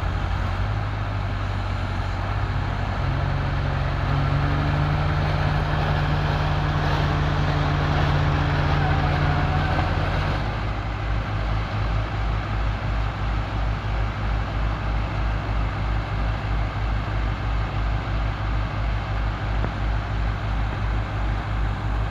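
Heavy machinery's diesel engine running hard. Its speed rises a few seconds in and holds, then drops about ten seconds in to a lower, lumpy, pulsing beat.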